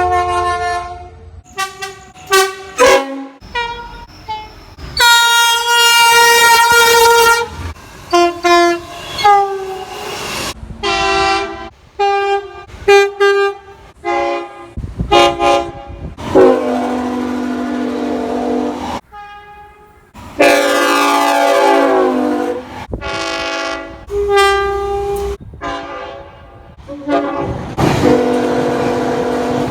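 Train horns sounding a string of blasts: many short toots and several long chords held for a few seconds. Different horns are spliced one after another, with sudden cuts between them.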